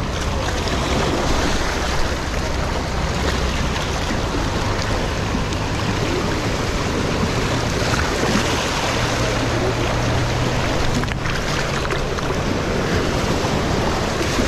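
Sea waves washing and surging over sandstone shore rocks: a steady rushing of water.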